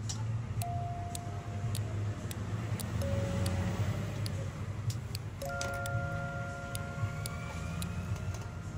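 A road vehicle passing by, its noise swelling and fading about halfway through, over quiet background music and a few light clicks.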